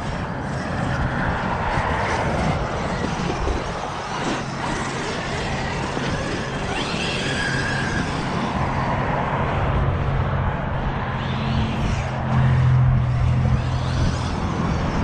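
Steady outdoor noise with a motor vehicle's engine hum, loudest from about twelve to fourteen seconds in.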